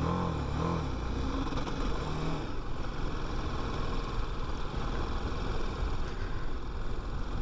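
TVS Apache RR 310 single-cylinder motorcycle being ridden, heard from the bike: the engine note rises and falls during the first two to three seconds, under a steady rush of wind and road noise.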